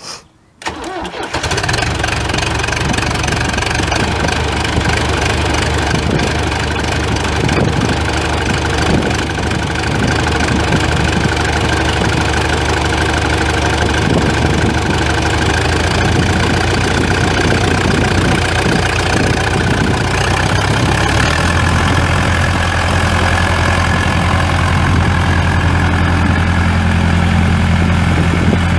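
A 1990 John Deere 2355 tractor's 3.9 L four-cylinder diesel engine is cranked and catches within about a second, then runs steadily at idle. Its note changes slightly about twenty seconds in.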